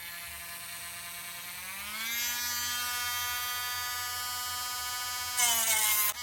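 A small high-speed electric motor, like a handheld power tool, switches on, speeds up about two seconds in and runs steadily. Near the end a louder, harsher noise comes in as the motor slows and stops.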